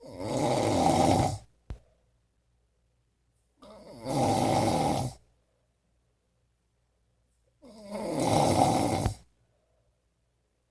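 A person snoring heavily: three long snores about four seconds apart, each lasting about a second and a half, with silence in between.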